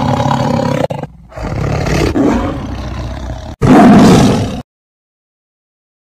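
Lion roar sound effect in three parts, the last and loudest about three and a half seconds in, then cut off to dead silence.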